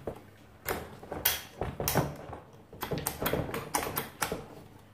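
Several irregular sharp clicks and knocks as a drill bit is pushed into the SDS-plus tool holder of a Parkside PBH 1500 F6 hammer drill and handled against its locking sleeve.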